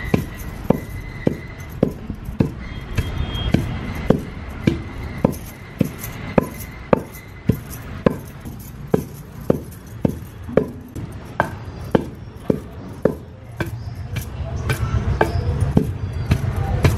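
Steady rhythmic knocking of food being prepared by hand for chutney, about one and a half to two sharp knocks a second over a low background rumble. A faint steady high tone is heard through the first half.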